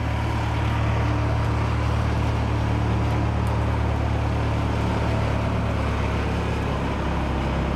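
A motor vehicle's engine running with a steady, unchanging low rumble.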